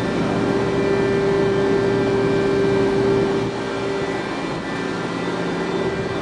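Steady industrial machinery running with a low drone and several steady whining tones. The strongest tone fades out about three and a half seconds in, while the hum carries on.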